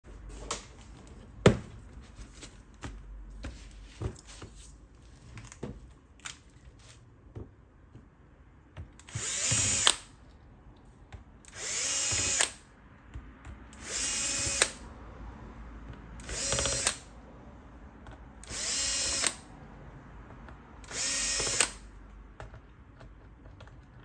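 Cordless electric screwdriver running in six short bursts, about a second each and two seconds apart, backing out the bottom-cover screws of a Lenovo IdeaPad 720 laptop. Before the bursts there are scattered knocks and clicks of handling, one louder knock about a second and a half in.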